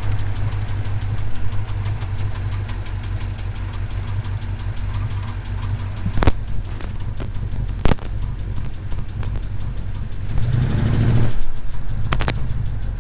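1977 Chevrolet C10's small-block 350 V8 running at low speed, with a light tapping that the owner traces to the valvetrain, where he suspects the rockers or lifters weren't set right. Two sharp clicks come in the middle, and the engine note swells briefly near the end.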